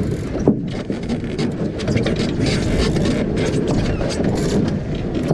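Wind buffeting the microphone and water rushing along a sailing dinghy's hull as it sails, with short splashes and spray hits.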